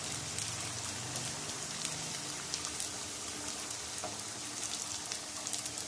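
Potato chapli kababs shallow-frying in hot oil in a nonstick pan: a steady sizzle with fine crackles.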